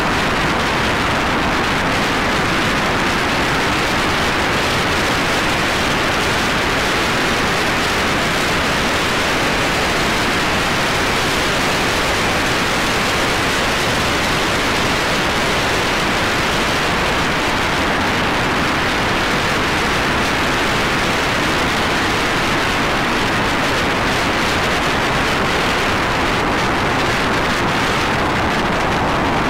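Steady rush of wind and tyre noise from a car driving at highway speed, heard from inside the car.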